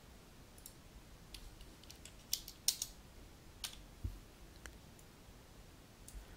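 Faint, scattered clicks of a computer mouse and keyboard keys, about a dozen sharp clicks with a quick cluster between two and three seconds in.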